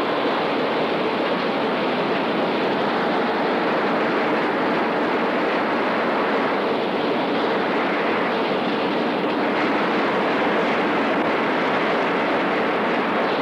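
Steady, even rushing rumble of a fishing trawler under way at sea, with a faint steady hum, unchanging throughout.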